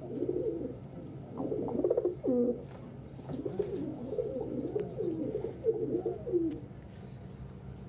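Domestic pigeons cooing: a run of low, rolling coos, one after another, that stops about a second before the end, over a steady low hum.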